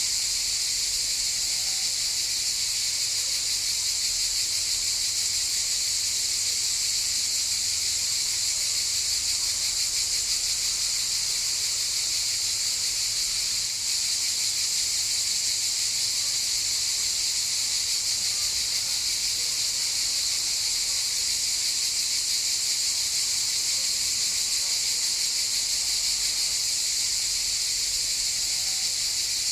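Cicadas buzzing in a steady, high-pitched chorus without pause, dipping very briefly in loudness about halfway through.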